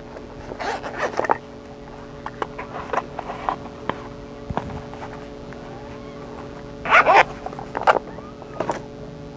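DB Audio amplifier speaker putting out a steady electrical hum with no signal playing, the hum fault under repair, which the repairer suspects comes from rusty capacitors and dirty potentiometers. A dog barks in short bursts about a second in and again a few times near the end.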